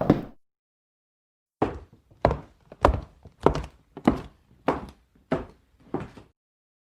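A sound effect of eight even, dull thuds, about one and a half a second, starting nearly two seconds in.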